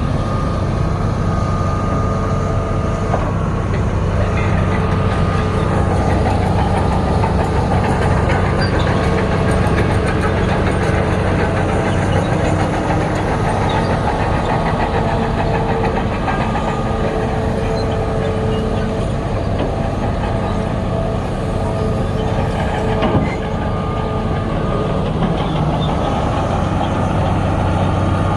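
Heavy diesel engine of earthmoving machinery running steadily, with a brief knock toward the end.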